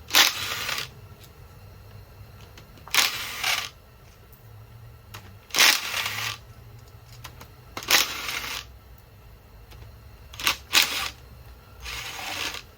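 Removed engine bolts being dropped one at a time together into a container, each landing with a short metallic clatter. There are seven clatters a couple of seconds apart, two in quick succession near the end.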